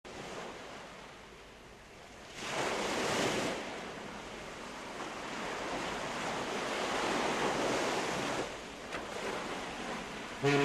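Sea water sloshing against a stone quay and the hulls of moored boats, swelling louder twice, with wind buffeting the microphone.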